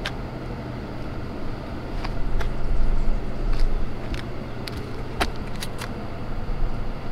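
Outdoor street ambience: a steady low hum of traffic or a nearby running vehicle, with a scattering of short, light clicks.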